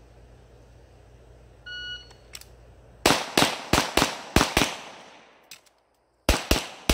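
A shot timer beeps, and about a second later a pistol fires six fast shots in about a second and a half. After a short gap with faint clicks, the magazine change in a classifier stage, the pistol resumes rapid fire near the end.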